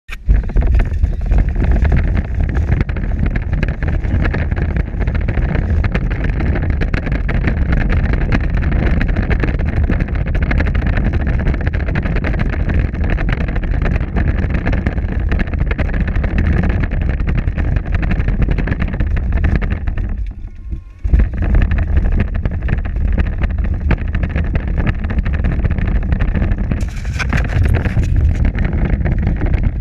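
Power Wheels ride-on toy car driving over pavement, heard from a camera mounted on it: a loud, steady rumble of the plastic wheels and drivetrain. It briefly drops out about two-thirds of the way through, then resumes.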